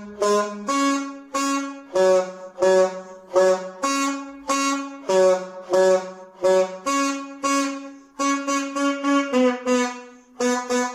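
Unaccompanied saxophone playing a tune of separate, detached notes with short gaps between them. The notes come quicker in the last few seconds.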